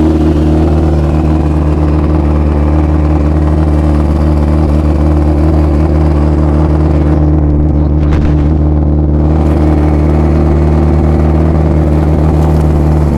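Suzuki-based Pro Street drag motorcycle engine idling loudly and steadily at an even pitch.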